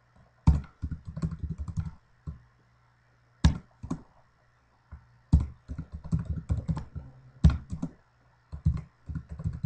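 Typing on a computer keyboard in several quick bursts of keystrokes with short pauses between them, each burst starting with a harder stroke.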